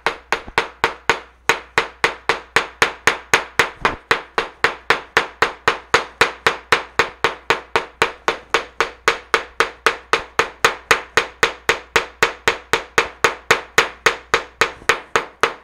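Claw hammer pounding again and again on leaves covered by a paper towel on paper and a cutting mat, in a steady run of about four blows a second. This is pounded-leaf eco printing: the blows crush the leaf so its pigment prints onto the paper.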